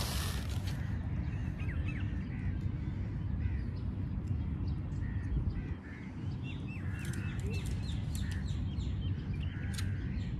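Many birds chirping and calling in short, scattered calls over a steady low rumble, with a brief burst of noise at the very start.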